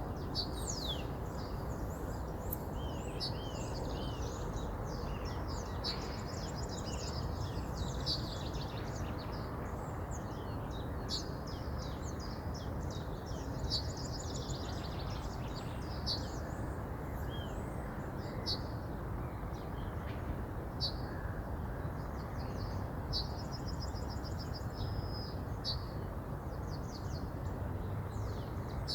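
A river flowing steadily, with many small birds singing and chirping over it in quick short calls and trills.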